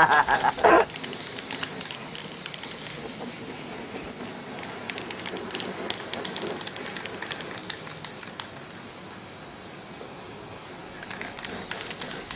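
Aerosol spray-paint can hissing steadily in one long, unbroken spray.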